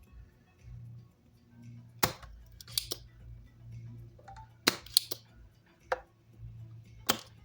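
Sharp clicks and taps of hand tools working on an amplifier's circuit board, about six spread over several seconds, over a low steady hum.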